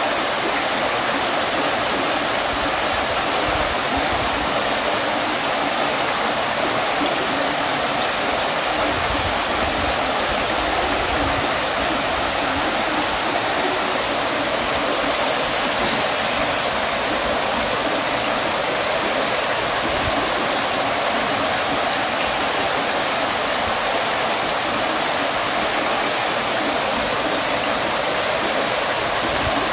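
Water fountain splashing steadily, an even rush of falling water. A brief high-pitched blip sounds once about halfway through.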